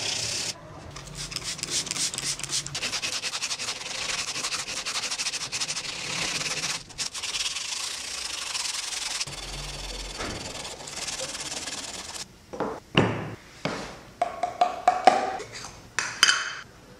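Sandpaper rubbed by hand over the metal sole of an antique clothes iron: a steady, scratchy back-and-forth rubbing. About twelve seconds in it stops, and a run of sharp knocks and clicks follows as a metal paint can is handled.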